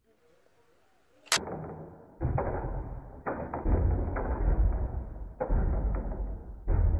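Homemade wooden rubber-band slingshot machine gun firing: a single sharp snap about a second in, then bursts of rapid clattering as the wooden mechanism releases its rubber bands in quick succession.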